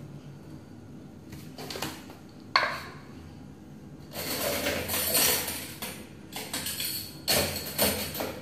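Kitchen clatter of a measuring spoon and utensils against a stainless-steel stockpot. A sharp ringing clink comes about two and a half seconds in, a stretch of noisy clatter follows in the middle, and several knocks come near the end.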